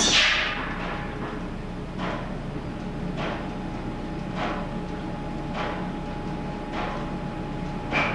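Belt-driven machinery of an old line-shaft machine shop running, powered by a 40-horsepower DC motor through the overhead main shaft and countershafts. A steady hum carries a short knock repeating evenly about every 1.2 seconds, and a loud hiss falls in pitch at the very start.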